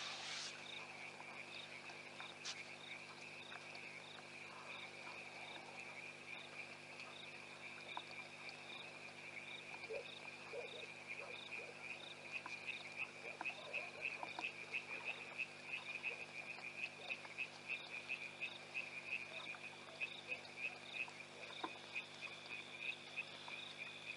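Night chorus of frogs calling: a steady high trilling, with a short higher call repeating about every two-thirds of a second. The pulsing grows more distinct about halfway through.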